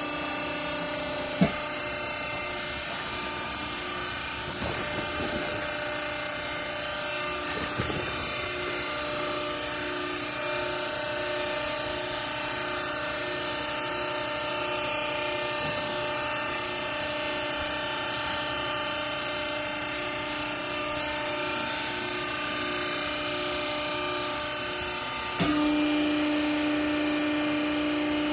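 Hydraulic baler's motor and pump running with a steady hum. There is a sharp click about a second and a half in, and near the end the sound steps up louder with a stronger low tone.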